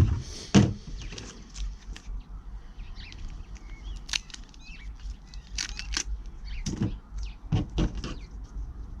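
Scattered knocks and clicks from tools being handled while plugging a punctured car tyre, the heaviest thuds about half a second in and near the end. Birds chirp faintly in the background.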